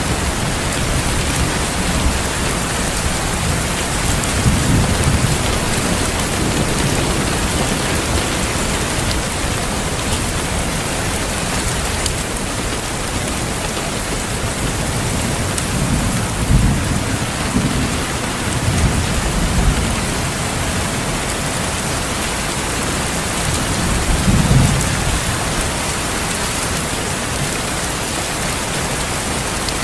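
Steady rain falling, with low rumbles of thunder rolling in several times: once about four seconds in, a cluster through the middle, and once more past the three-quarter mark.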